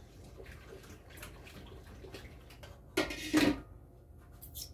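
Kitchen prep noises at a counter: faint knocks and rustles, then a short, louder noisy rush about three seconds in.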